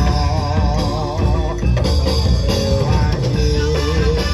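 Live Javanese gamelan band music played loudly, with steady drumming and a wavering melody line over it.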